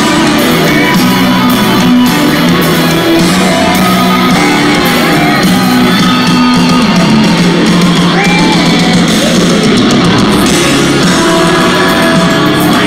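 Live rock band playing loud, with electric guitars and a shouted vocal line, heard from within the crowd in a large hall.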